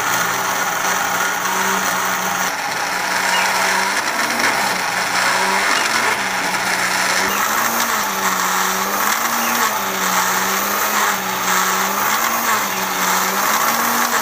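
Panasonic electric blender motor running at speed, grinding thick cooked mustard-greens saag into a purée. Its hum wavers up and down about once a second from a few seconds in.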